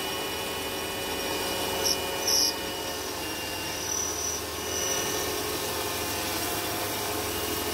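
Mini bench lathe (BHC250V, 750 W motor) running under a deeper cut, turning the outside diameter of a round metal bar as long curling chips come off the tool: a steady motor-and-spindle hum with several held tones. A few brief, sharp, high-pitched bursts sound about two seconds in.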